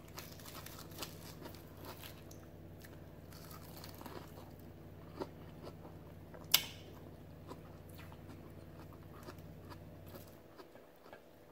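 Close-up chewing of crunchy iceberg lettuce, faint, with many small crunches and one sharper crunch about six and a half seconds in. A steady low hum underneath stops near the end.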